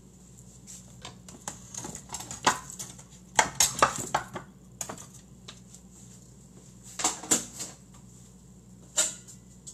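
Kitchenware being handled on a counter: dishes, bowls and utensils clicking and knocking as they are picked up and set down. The knocks come in scattered clusters, the busiest about three and a half seconds in and another about seven seconds in.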